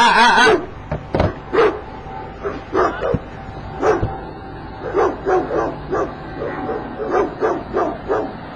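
Newfoundland dog barking repeatedly, a bark every second or so.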